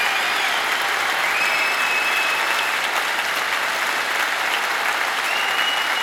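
Large arena audience applauding steadily after a song, with a few short high whistles over the clapping.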